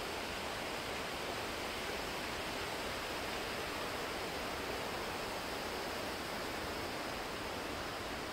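Steady, even rushing hiss that does not change.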